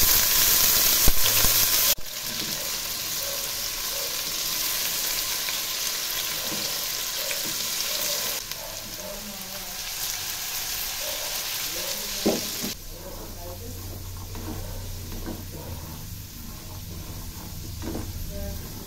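Diced potatoes sizzling in hot oil in a frying pan as they are tossed and stirred. The sizzle is loudest in the first two seconds, just after the potatoes go into the oil, then settles to a steadier, weaker hiss, with one sharp knock of the spatula or pan about two-thirds through.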